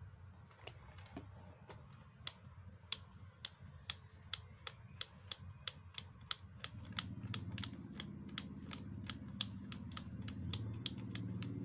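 Small on/off slide switch on the underside of a toy RC excavator being flicked back and forth over and over: sharp plastic clicks, a few at first, then about three a second. It is being worked loose after a drop of eucalyptus oil, because it was stiff, which the repairer puts down to rust.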